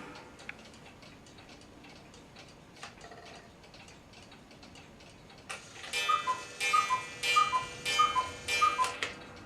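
Vintage Schneider one-day cuckoo clock ticking faintly, then striking: about five and a half seconds in it gives five two-note cuckoo calls, high then lower, each with a ring of its little chime.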